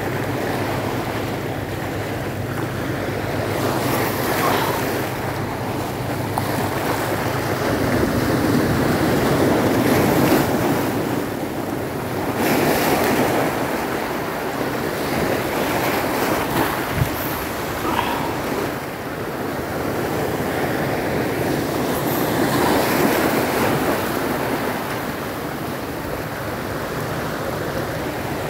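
Sea waves washing onto the shore, the surf noise swelling and falling back every few seconds, with wind buffeting the microphone.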